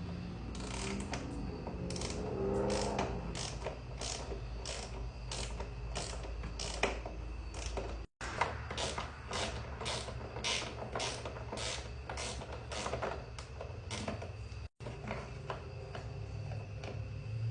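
Ratchet wrench clicking in steady repeated strokes, about two to three clicks a second, over a low hum; the sound cuts out abruptly twice.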